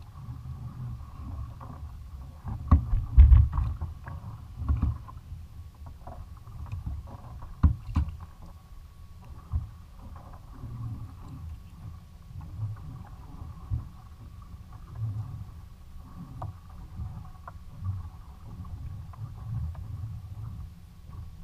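Low rumble of water and wind around a fishing kayak on the open sea. A cluster of loud knocks on the hull comes a few seconds in, another about eight seconds in, and lighter knocks follow.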